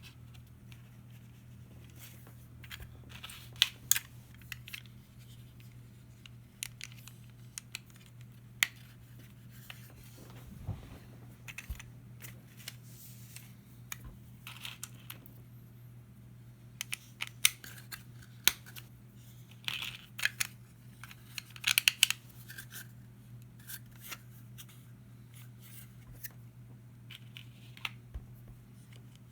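Small plastic Lego pieces being handled and clicked together: scattered sharp clicks and taps, clustered in a few busy moments, over a steady low hum.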